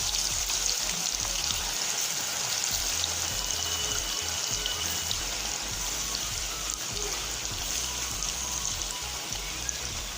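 Chicken pieces frying in hot coconut oil in a wok: a steady sizzle with many fine crackles, over background music.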